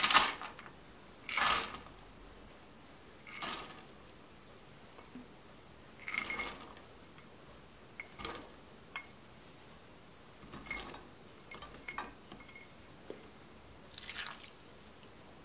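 Dried fruit tipped from glass bowls into a stainless steel saucepan, pattering and clinking against the pan in a series of short bursts. Near the end orange juice is poured in with a liquid splash.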